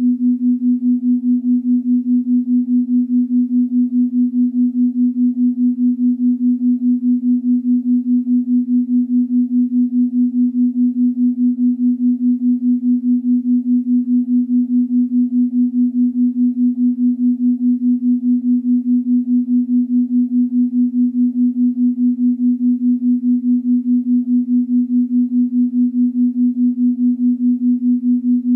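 Steady electronic meditation tone: one low note held unchanging, swelling and fading in an even pulse several times a second.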